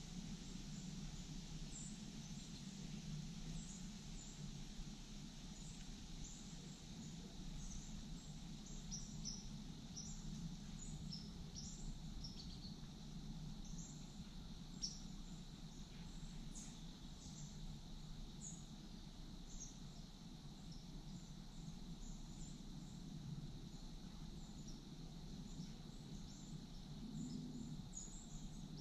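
Quiet woodland ambience: scattered short, high bird chirps over a low, steady background noise.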